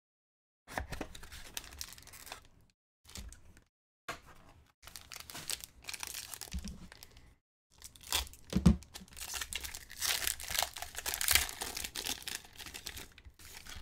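Blue foil wrapper of a Topps Inception baseball card pack crinkling and tearing as it is ripped open by hand. It comes in several stretches with short breaks, loudest in the last few seconds.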